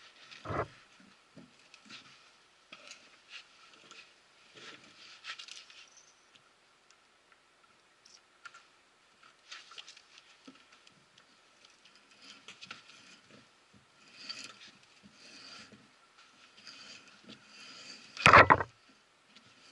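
Stevens axle tool's reamer being turned in the worn spindle-bolt bore of a Model T Ford front axle, cutting out the worn metal to take a tapered bushing: scattered small scraping and clicking of steel on steel. A short knock just after the start and a much louder metal clunk near the end.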